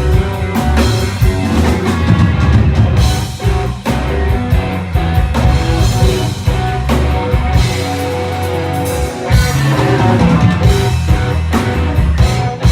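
Rock band playing loudly, with a drum kit and electric guitar over sustained notes and a heavy low end.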